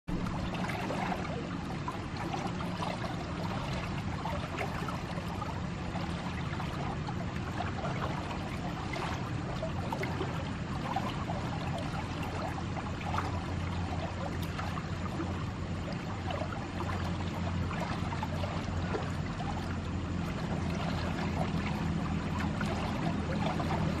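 Fast-flowing water rushing steadily down a stone-walled concrete irrigation channel.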